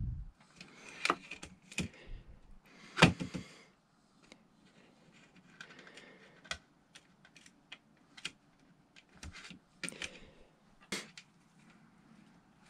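Irregular taps, clicks and brief rustles of fingers pressing a self-adhesive LED light strip into place along the edge of a light fixture housing, with the loudest knock about three seconds in.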